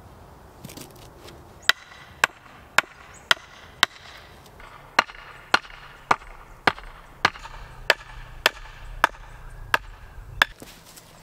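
Wooden stake being hammered into the ground: sharp wooden knocks at about two blows a second, some fifteen strikes with one short pause partway through.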